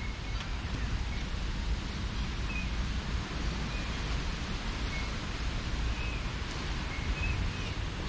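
Wind rumbling on the microphone and rustling through the trees, with short bird chirps scattered throughout.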